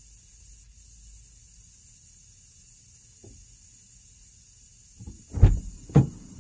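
Faint steady hiss from a Mothers odor-eliminator aerosol fogger spraying inside a closed car, then two heavy thumps about half a second apart near the end.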